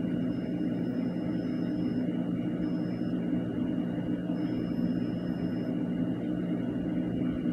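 Steady electrical hum with a faint high-pitched whine that comes and goes three times.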